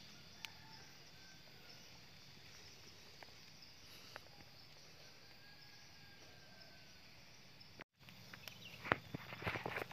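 Insects chirring steadily in a high, even hum, with a few faint clicks. About eight seconds in the sound cuts out for a moment, then dry leaf litter rustles and crackles close by, the loudest sound.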